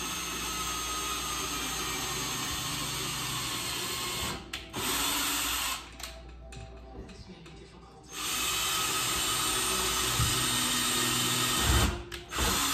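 Power drill running in bursts while fastening a TV wall-mount bracket to the wall. A long run stops about four seconds in and is followed by a short burst. After a pause comes another run of about three and a half seconds, then a couple of quick pulses near the end.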